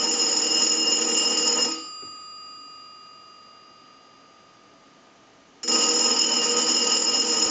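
The newly installed bell in a GTE Automatic Electric single-slot payphone ringing on a ring cycle. One ring stops about two seconds in and its tone fades slowly away. The next ring starts about two seconds before the end.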